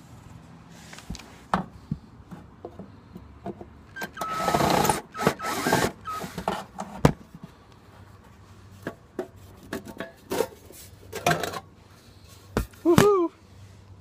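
Cordless drill/driver running in two short bursts, backing screws out of the sheet-metal cover of an RV air conditioner's control box. Clicks and metallic knocks follow as the cover is handled and removed, with a short squeak near the end.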